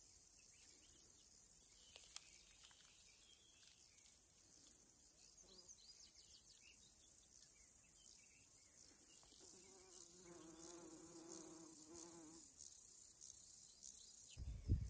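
Insects chirring in summer vegetation: a faint, steady, high-pitched drone with a fast pulse. About ten seconds in, a faint drawn-out call with a wavering pitch lasts a couple of seconds. Near the end the chirring cuts off and louder low thumps begin.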